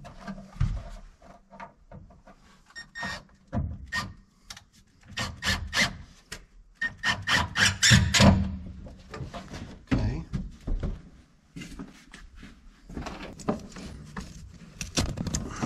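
Irregular clicks, taps and scraping from hands working on car interior trim and carpet, with a few clusters of quick knocks.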